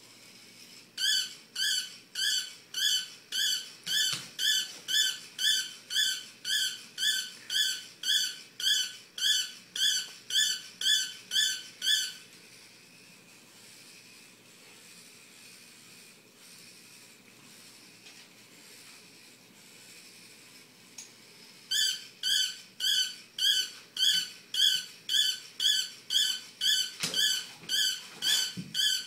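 Small battery-powered robot toy dog giving a repeated high electronic squeak, about two a second, every squeak alike. It stops for some ten seconds in the middle, then starts again.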